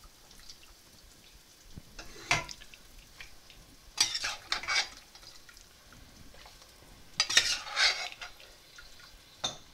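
Pieces of boiled goat mutton tipped into a stainless steel pan of frying onion and pepper masala: a few short bursts of clattering and sizzling against the pan, with a faint sizzle in between.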